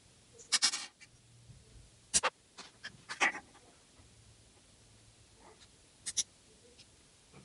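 Small plastic surprise-egg toy pieces clicking and clattering as they are handled: a few short bursts, the loudest in the first half, and a quick pair of clicks near the end.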